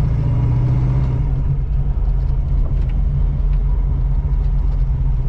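1985 Oldsmobile Cutlass Supreme's engine idling with a steady low rumble through its headers, running smoothly on a new carburetor without stalling.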